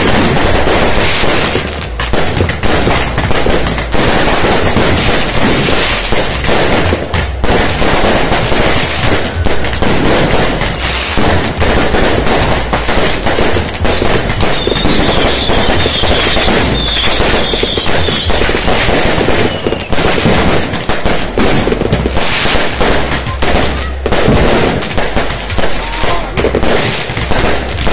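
A dense, unbroken barrage of firecrackers and fireworks going off, rapid bangs overlapping one another. A high, wavering whistle sounds over the bangs for a few seconds in the middle.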